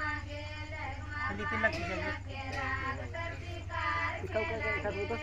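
High-pitched voices singing a melodic song with held, bending notes, over a steady low hum.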